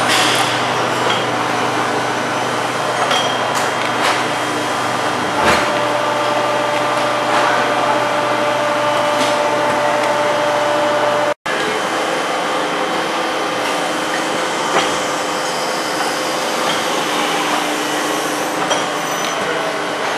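Steady machinery noise of a plastic injection moulding machine running, a constant hum with occasional light clicks and knocks. The sound drops out for an instant about eleven seconds in, and the low part of the hum is gone after it.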